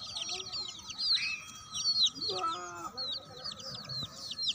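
A brood of chicks peeping continuously: quick, high, falling peeps, several a second. A hen gives one lower cluck about halfway through.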